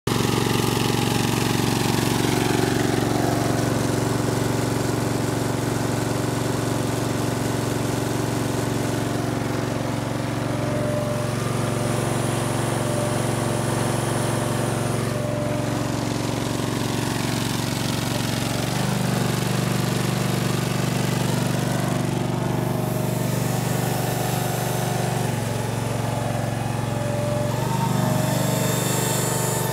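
Toro Greensmaster 3100 riding greens mower's engine running steadily. Its note changes about two-thirds of the way in, changes back a few seconds later, and changes again near the end.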